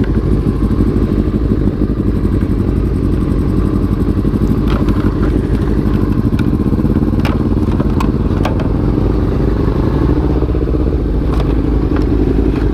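Sport motorcycle engine running at a steady cruising speed under light throttle, its pitch holding nearly level and dipping slightly about halfway through. A few sharp clicks are scattered across it.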